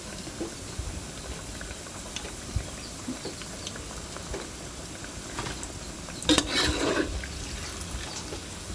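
Kitchen utensils clinking and scraping against pots and dishes, light scattered knocks with a louder clatter about six seconds in.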